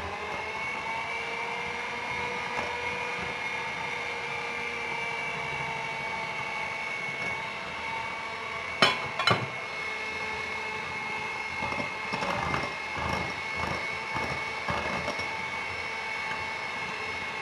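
Electric mixer running steadily at one speed, its beaters whipping eggs, sugar and oil into a foamy batter. Two sharp knocks come about nine seconds in.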